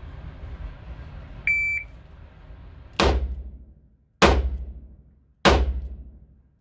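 A shot timer's short start beep about a second and a half in, then three shots from a Taurus RT 889 .38 Special revolver firing +P+ ammunition, a little over a second apart, each ringing out in the indoor range; a fourth shot comes right at the end.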